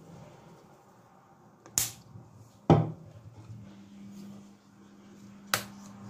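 Three sharp knocks of kitchen items handled while ground pepper and spices are added to a bowl of minced meat, the second knock the loudest. A steady low hum starts about halfway through.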